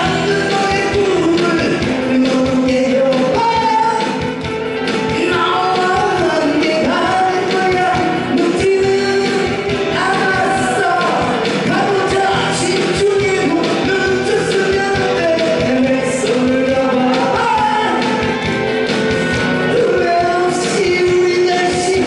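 A man singing a Korean pop song live into a microphone over a prerecorded backing track, amplified through a PA system.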